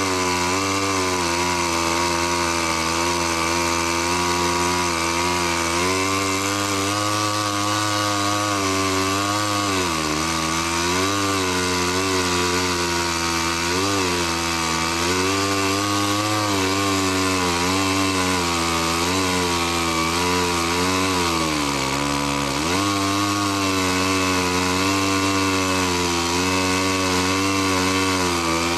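Two-stroke chainsaw mounted on a homemade portable sawmill, running at high revs while ripping a log lengthwise into lumber. Its pitch sags briefly as it bogs in the cut, most deeply about ten and twenty-two seconds in.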